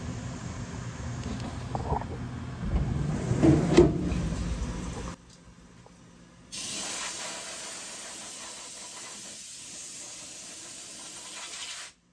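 DVF 5000 five-axis CNC machining center at work: a steady machine hum with a few louder knocks, then, after a short break, a steady spraying hiss inside the machine.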